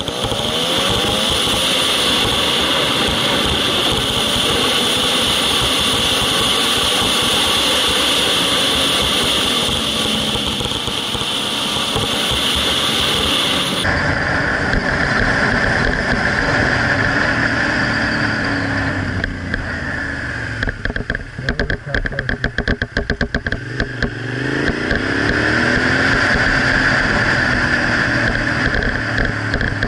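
Suzuki SV650's V-twin engine rising and falling in pitch as the motorcycle is ridden through bends, under loud steady wind noise on the camera microphone. The sound changes abruptly about halfway through, and for a few seconds later on the loudness flutters rapidly.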